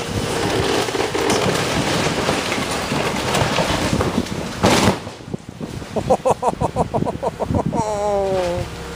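A house coming down under demolition: a long run of cracking timber and crashing debris, with one loud crash a little before halfway. Then comes a rapid pulsing sound with a pitch, and a falling tone near the end.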